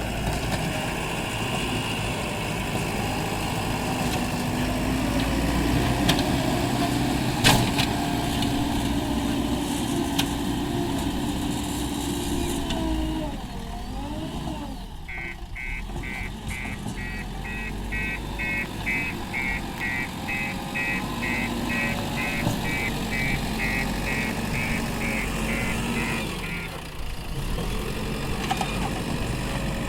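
Diesel engines of a JCB 3DX backhoe loader and the trucks it is loading, running steadily, with the engine pitch rising and falling near the middle as the backhoe works. There is a sharp click about seven seconds in, and a rapid electronic beeping, about three beeps a second, for some ten seconds in the second half.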